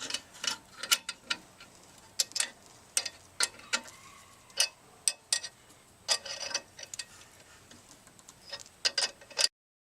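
Ratchet wrench clicking in short, irregular runs as bolts through the caliper mounting bracket are tightened against a stuck brake rotor to press it off the hub. It cuts off suddenly near the end.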